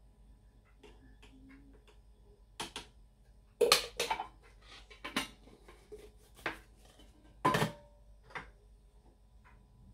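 Metal coffee tins, lids and a glass jar being picked up and set down: a string of separate clinks and knocks, loudest about four seconds in and again about seven and a half seconds in.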